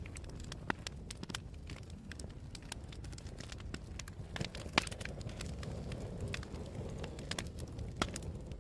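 Wood fire burning in a fireplace: a steady low rumble with scattered sharp crackles and pops, the loudest a crack a little under five seconds in and another about eight seconds in.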